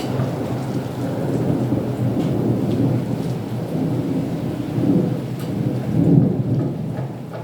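Thunder rumbling low over steady rain, swelling twice in the second half before easing off, with scattered raindrop ticks.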